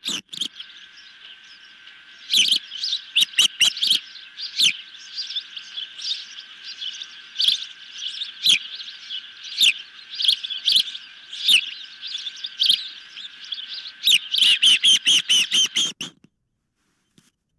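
Young ospreys calling from the nest: loud, sharp chirps about once a second over softer continuous calling. The calls quicken into a fast run of chirps, then stop abruptly well before the end.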